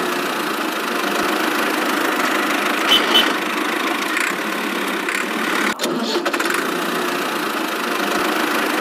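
Steady engine running noise, like a small tractor engine idling, for a miniature toy tractor pulling a loaded trolley. A brief higher chirp comes about three seconds in, and the sound briefly cuts out near six seconds.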